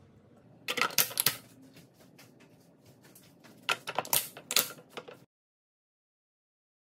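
Two quick clusters of sharp plastic-and-glass clicks and clacks, about a second in and again around four seconds in. The later ones come from the locking clips of plastic lids being snapped shut on glass food containers. The sound then cuts off suddenly to silence.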